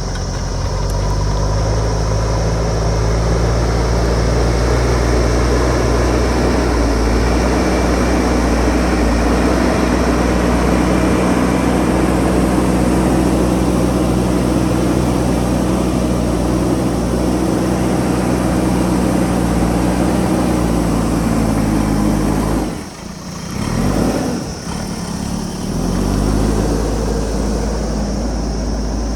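JCB backhoe loader's diesel engine running under steady load. About three quarters of the way through, the sound drops away briefly, then climbs back up with a rising pitch.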